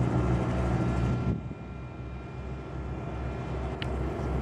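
Light propeller airplane's engine droning steadily. About a second in, the sound drops suddenly to a quieter drone that slowly builds again, with one short click near the end.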